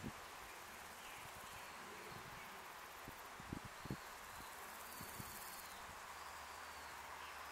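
Faint hillside ambience of insects buzzing and trilling, a high thin sound that swells and fades, with a few faint high bird chirps and some soft low bumps.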